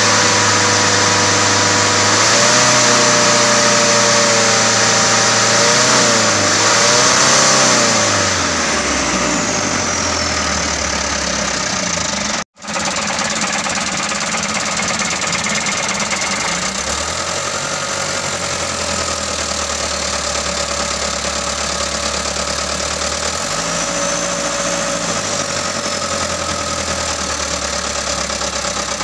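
Mitsubishi Canter 125 truck's diesel engine running while its injection pump is adjusted. Its speed rises and falls several times in the first few seconds, then it settles to a steady idle that shifts slightly now and then.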